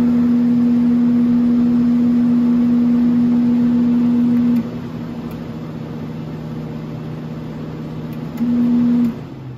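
Sharp Comfort Touch window air conditioner running with a loud steady hum. The hum cuts out about halfway through as a control-panel button is pressed, leaving a quieter steady running sound. It comes back briefly near the end, then the unit is switched off and winds down.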